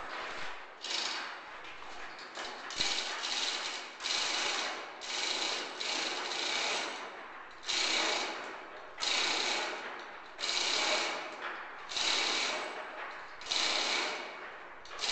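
Hand-tool work in repeated rasping strokes: irregular at first, then settling about halfway through into a steady rhythm of roughly one stroke every second and a half.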